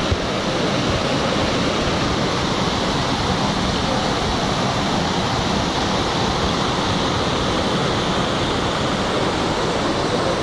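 Water from a burst reservoir pipe streaming and rushing in a steady, unbroken flow.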